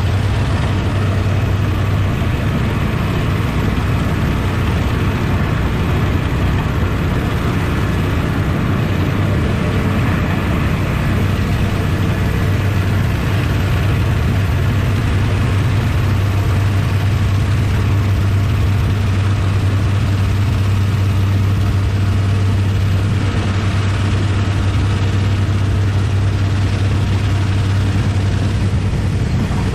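Pressure washer's engine running steadily with a deep, even hum, under the steady hiss of the high-pressure water jet washing down paving.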